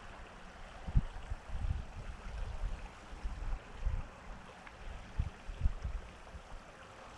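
Outdoor ambience by a creek: irregular low rumbles of wind buffeting the microphone over a faint steady hiss.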